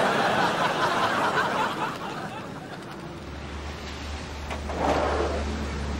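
Studio audience laughing, loudest for the first two seconds and then dying away, with a second short burst of laughter about five seconds in. A low steady hum sets in about halfway through.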